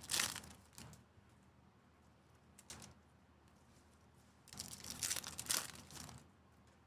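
Trading-card pack wrapper crinkling and tearing as a pack is ripped open. There is a short burst right at the start, a faint rustle near three seconds in, and a longer crinkling burst from about four and a half to six seconds.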